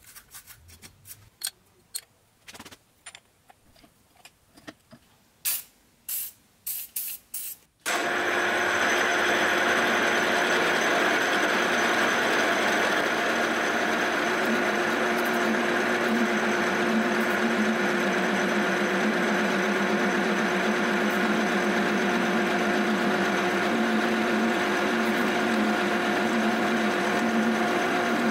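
A brush flicking aluminium chips off a milling cutter, a series of short scratchy strokes. About eight seconds in, a milling machine face-milling an aluminium plate cuts in suddenly: a steady loud cutting noise with a constant spindle whine.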